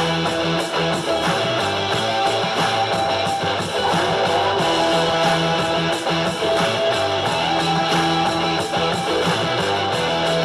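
Music with strummed electric guitar and a steady beat.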